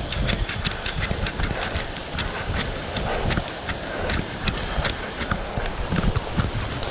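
Running on a jungle trail heard through a body-worn GoPro action camera: uneven low rumbling from the camera jolting with each stride, with sharp clicks several times a second. A faint steady high tone sits underneath.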